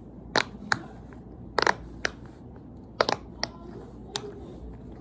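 Silicone pop-it fidget toy having its bubbles pressed one after another, making a string of short, sharp pops at an uneven pace. This is the side she calls the good side.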